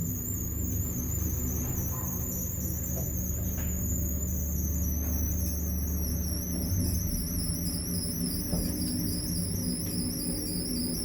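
Water-damaged lift running: a high, wavering squeal with a funny, scratchy sound that slowly drops in pitch over a steady low hum from the drive. The noise is a sign of flood damage to the lift.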